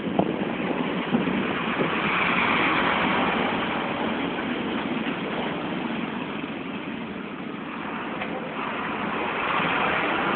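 Road vehicle engine running with road and wind noise, swelling a couple of seconds in, easing off midway and rising again near the end.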